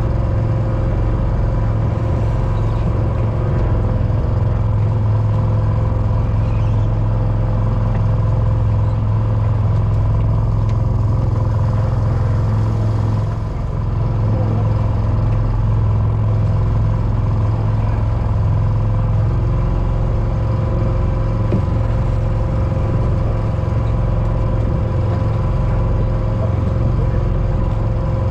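Small fishing boat's engine running steadily with a constant low hum, while the pot hauler winds in the rope of a string of lobster pots.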